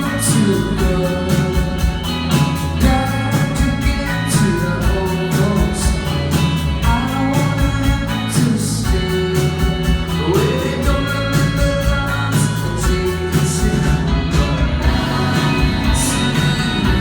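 Rock band playing live, with sung vocals over electric instruments and a steady beat.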